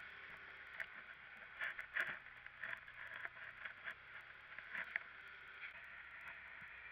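A moving UTV heard faintly through the camera: a steady hiss with irregular knocks and rattles from jolts over rough ground, bunched between about one and five seconds in and loudest about two seconds in.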